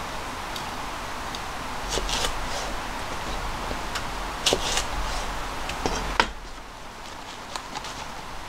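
Kitchen knife cutting okra on a plastic cutting board: a few sharp taps of the blade against the board, over a steady hiss that drops away about six seconds in.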